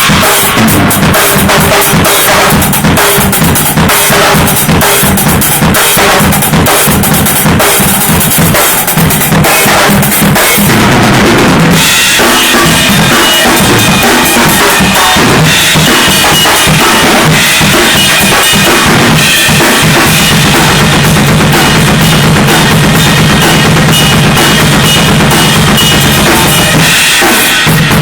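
Acoustic drum kit played loud, with kick drum, snare and cymbal hits in a steady groove. About twelve seconds in, steady sustained tones join under the drums.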